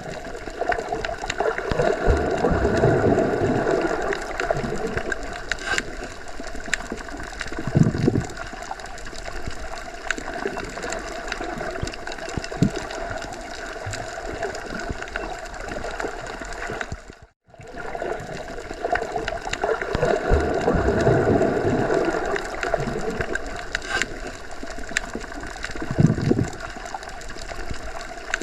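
Underwater ambience: deep water noise that swells and ebbs, with a steady low hum beneath it. It drops out for an instant about two-thirds of the way through, and the same pattern then begins again as a loop.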